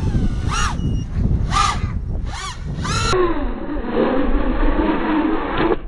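Racing quadcopter's brushless motors and propellers whining in quick rises and falls of pitch, about one every second, as it makes fast passes, over a low wind rumble on the microphone. About three seconds in the sound turns duller and a lower, wavering whine carries on.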